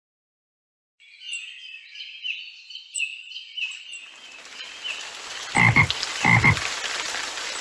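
Cartoon nature sound effects: a bird chirping repeatedly, then a steady hiss of rain rising in, with a frog croaking twice about six seconds in.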